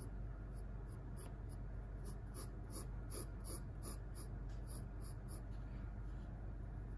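Pencil scratching on drawing paper in a run of about a dozen short sketching strokes, closest together and loudest in the middle, stopping a little over five seconds in.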